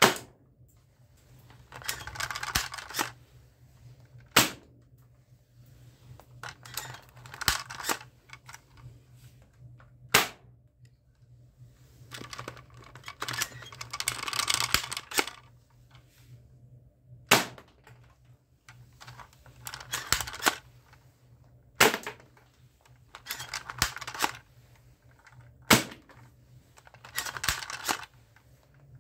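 Spring-powered toy airsoft guns firing plastic ball pellets: several sharp snaps a few seconds apart. Between the shots, plastic rattling and clicking as the toy guns are handled.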